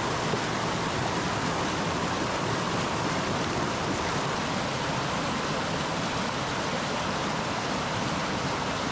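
Steady rushing of a mountain stream, an even, unbroken water noise.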